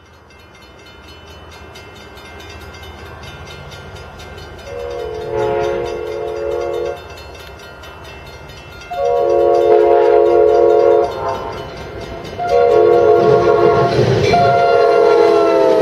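Amtrak P42DC diesel locomotive approaching, its rumble growing, as it sounds its multi-note air horn in three long blasts. The first comes about five seconds in, the second about nine seconds in, and the third about twelve seconds in. The third breaks briefly and carries on, its pitch sliding down as the locomotive reaches the camera.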